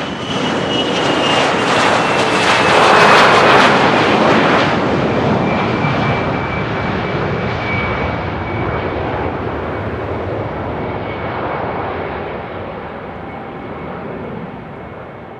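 Business jet passing close by, loudest about three seconds in, its engine whine sliding down in pitch as it goes past, then slowly fading away.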